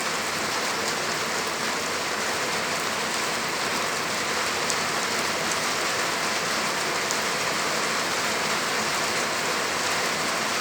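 Steady heavy rain falling and pattering on surfaces, a constant hiss with the occasional sharper drop tick.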